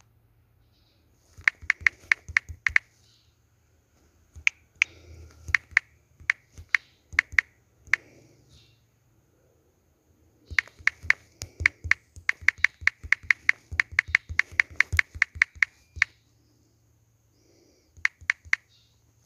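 Runs of quick, sharp clicks, about five or six a second, in bursts of one to five seconds with pauses between; the longest run comes in the second half.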